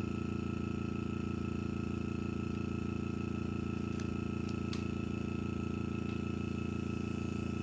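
A steady low machine hum with a faint high whine, and two faint clicks about four seconds in and just before five seconds.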